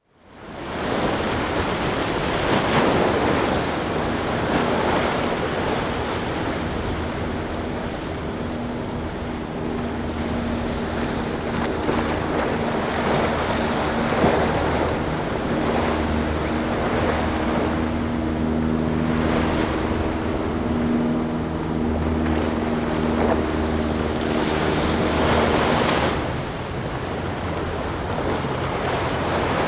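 Surf breaking and wind buffeting the microphone, joined from about a quarter of the way in by the steady hum of a Sea Ray 270 Sundancer's engines running past; the engine hum stops near the end, leaving surf and wind.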